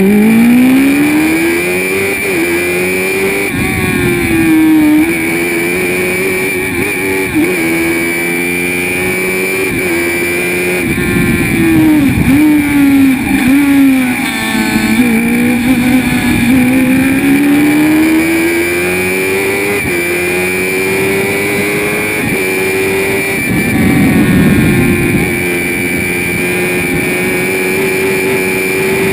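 Spire GT3 sports racing car's engine heard from inside the cockpit at racing speed. It pulls up in pitch through the gears and drops sharply at each shift, several times, and falls away under braking for the corners before picking up again.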